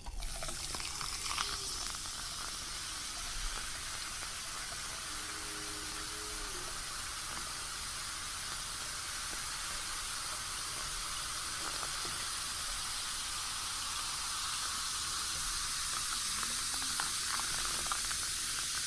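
Cola poured from a glass bottle over ice in a plastic cup, the carbonated soda fizzing with a steady hiss that grows a little louder as the cup fills.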